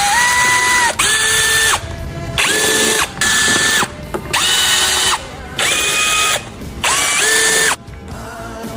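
Cordless power tool, an electric drill or ratchet, spinning in about six short bursts while a fastener is run off the engine. Each burst is a whine that rises quickly, holds a steady pitch, then stops.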